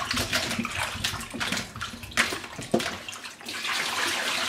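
Water splashing and sloshing as peeled potatoes are rubbed clean by hand in a plastic bowl of water in a stainless steel sink. About three and a half seconds in, it turns to a steadier rush as the washing water is poured out of the bowl into the sink.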